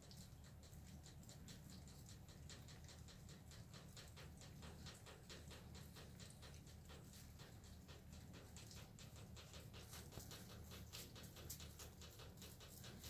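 Faint, rapid clicking of a bulldog gnawing on a chew toy, getting busier near the end.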